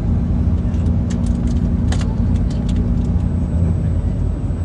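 Tour bus rumbling along, heard from inside the cabin: a heavy, steady low engine and road rumble with a droning hum that fades about three and a half seconds in. Several light rattling clicks come between about one and three seconds in.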